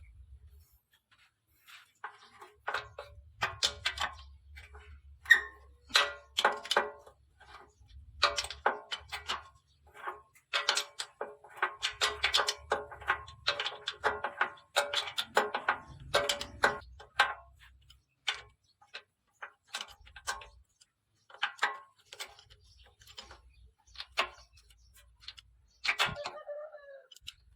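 Irregular metallic clicks and clinks, dense through the middle, with dull low knocks under some of them: tools and engine parts being handled during the strip-down of a walking-tractor engine.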